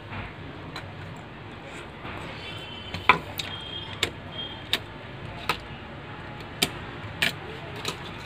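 A string of sharp small clicks and taps, about seven of them from about three seconds in, as hands handle laptop motherboard parts and unclip a RAM module from its slot, over a low steady hum.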